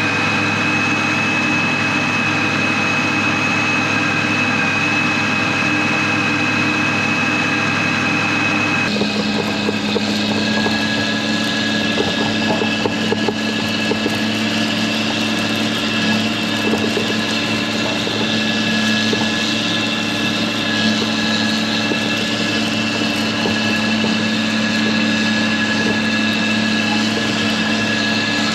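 John Deere 8400 tractor's diesel engine running steadily while pulling a planter across the field. About nine seconds in the sound changes abruptly to a large four-wheel-drive John Deere tractor running steadily as it drives past over worked ground, with a steady whine over its engine.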